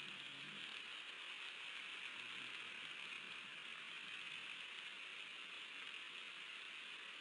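A steady faint hiss, with a faint low rumble in the first half-second and again about two seconds in.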